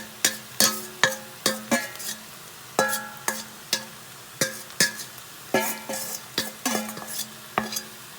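Spatula knocking and scraping against a cooking pot while stirring marinated lamb and onions, each knock leaving a brief ringing tone, with the meat sizzling underneath. The knocks come irregularly, about one or two a second.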